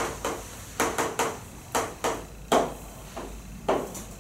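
Chalk on a chalkboard: a string of sharp taps and short scratches, about two or three a second, as an equation is written and graph axes are drawn.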